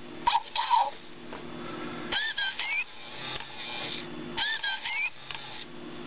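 Tekno robotic parrot toy making electronic bird chirps from its speaker: two short chirps about half a second in, then two bursts of gliding whistles that rise and fall, about two seconds apart. Between the calls its small gear motors whir steadily as it moves.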